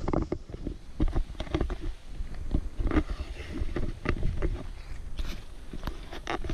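Footsteps on a dirt and rock trail, an irregular run of crunches and scuffs two or three a second, with clothing and gear rustling against a body-worn GoPro and a steady low rumble on the microphone.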